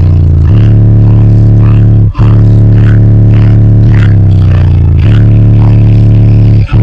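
A car audio subwoofer system playing a bass track at extreme volume, with long deep notes that change pitch a couple of times. The sound is overloaded and distorted, with rattling on top, and it drops out briefly twice.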